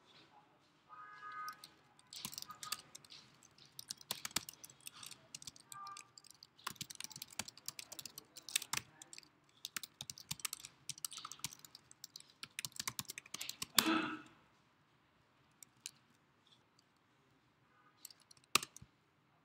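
Typing on a computer keyboard: quick runs of key clicks with short pauses for about fourteen seconds, then a brief louder sound. After that it is mostly quiet, with a single sharp click near the end.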